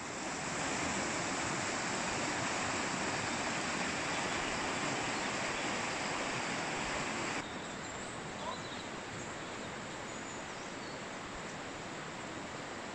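Mountain river rushing over rocks and rapids: a steady, full hiss of running water. About seven seconds in it cuts abruptly to a quieter, steady rush.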